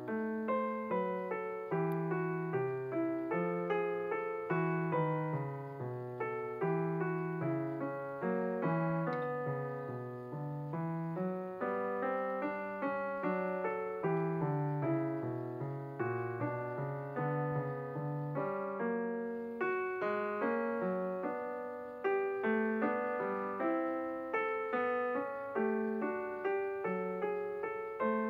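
Background piano music: a steady, flowing run of evenly paced notes over low chords.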